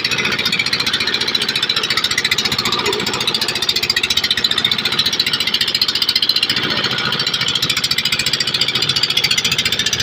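Engine of a wooden river boat running steadily underway, a loud, fast, even chugging.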